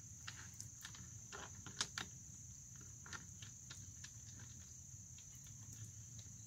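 Faint scattered clicks and ticks as a brass pipe-thread drain plug is worked by hand in a sailboat's hull drain fitting, the sharpest pair about two seconds in. Underneath runs a steady high insect drone of crickets.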